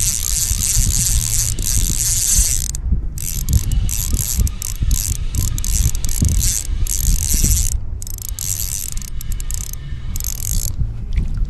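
Small 1000-size spinning reel being cranked to reel in line, its gears making a rapid ratcheting, clicking run.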